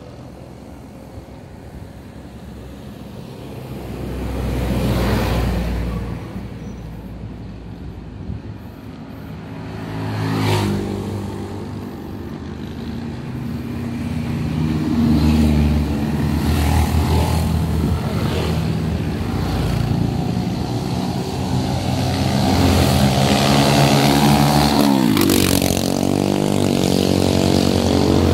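Motor vehicle engines passing close by. One swells and fades about five seconds in, another about ten seconds in, and from about halfway there is a steady engine drone whose pitch drops shortly before the end.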